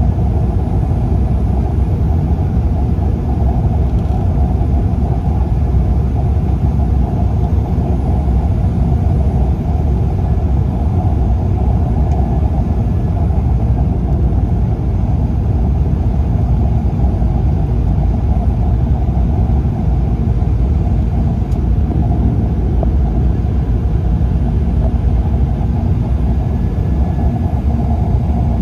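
Steady rumble of engines and airflow heard inside an airliner's cabin on final approach, low over the sea just before landing.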